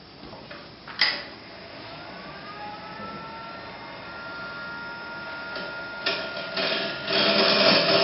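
JET mini wood lathe switched on with a click, its motor whine rising in pitch and settling steady, then a gouge cutting into the spinning wooden blank, loudest near the end, as the air chamber of a turned train whistle is hollowed out.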